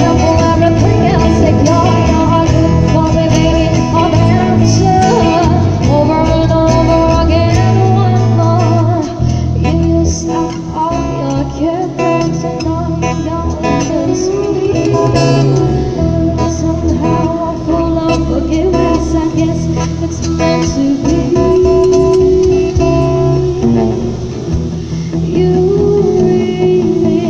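Live band playing a song: a woman singing into a microphone over amplified electric guitars and drums.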